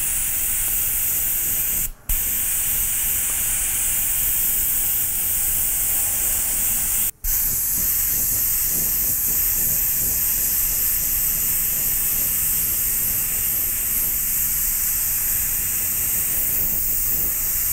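Airbrush spraying acrylic paint: a steady hiss of compressed air through the nozzle, broken off for an instant twice, about two and about seven seconds in.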